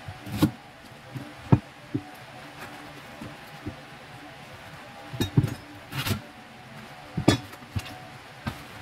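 A cleaver and a raw bamboo shoot knocking on a cutting board as the shoot is cut and its husk peeled off: about a dozen irregular sharp knocks and clinks, some in quick pairs, over a steady faint hum.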